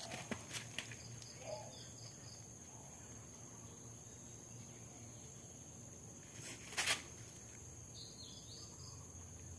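Steady high-pitched drone of insects, with a brief loud rustle about seven seconds in.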